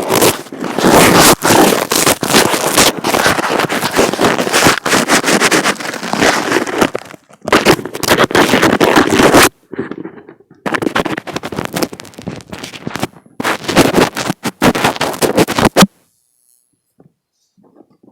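Fingers rubbing and scratching directly on an earphone microphone: loud crackling, scraping handling noise in several long bouts with short breaks, falling silent about two seconds before the end.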